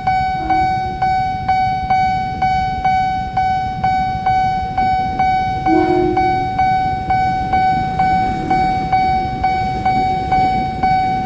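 Railway level-crossing warning bell ringing in even strokes about twice a second, over the low rumble of an electric commuter train passing and idling motorbikes. A short horn toot sounds about six seconds in.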